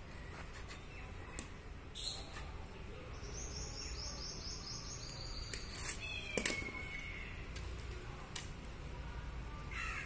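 Birds calling outdoors: a quick run of high repeated notes about three seconds in, and a short falling call a little later. Sharp clicks and rustling of cord being handled and cut with pliers come through in between.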